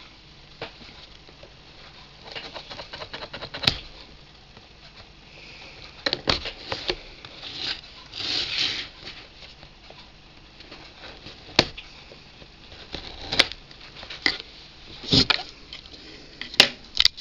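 Cardboard box being handled: scattered rustling and scraping with a few sharp taps.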